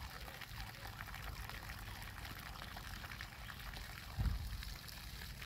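Water from a garden hose spraying in an arc and splashing steadily into a puddle on the grass, with a brief low bump about four seconds in.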